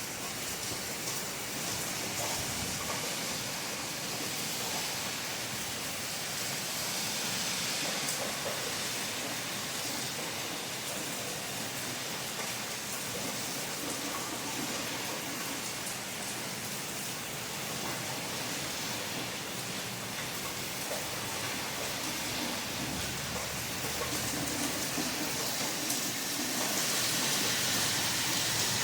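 Steady rain falling, an even hiss of drops on a surface that swells slightly near the end.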